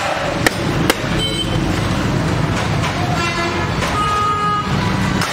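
Street traffic rumbling steadily, with vehicle horns honking: a short toot just over a second in and a longer honk from about three seconds to near the end. Two sharp clicks come just before it.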